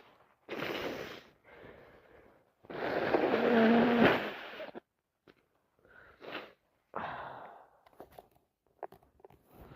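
Congested breathing and sniffles of a person with a bad cold, with one long, loud nose blow of about two seconds near the middle, followed by shorter sniffs and breaths.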